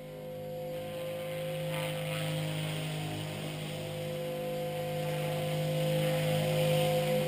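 Blade 450X electric RC helicopter flying, a steady motor-and-rotor whine with a lower hum, growing louder as it comes closer.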